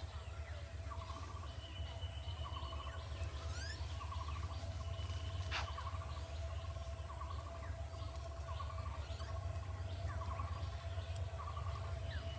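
Diesel locomotive engine running with a steady low rumble as it moves slowly forward. Over it, a bird repeats a short trilled call about once a second.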